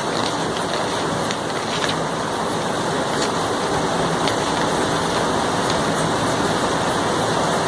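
Scissors snipping through a paper pattern sheet, with light paper rustling, under a loud steady rushing noise.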